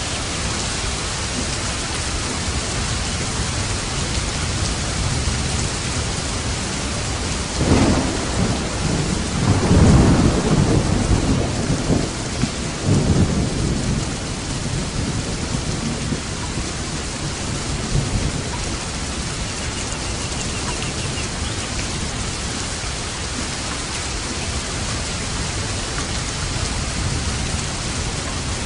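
Steady rain falling, with a thunderclap about eight seconds in that rolls on in rumbles for some six seconds before fading back into the rain.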